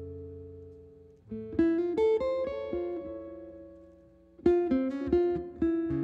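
Guitar played alone: a ringing chord dies away, then a short phrase of plucked notes comes in about a second in, another about four and a half seconds in, and it settles on a held chord near the end.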